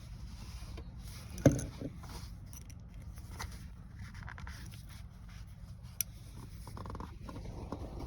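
Pliers working a thin metal rod: light scraping and handling, with one sharp click about a second and a half in, the loudest sound, and a smaller click near six seconds.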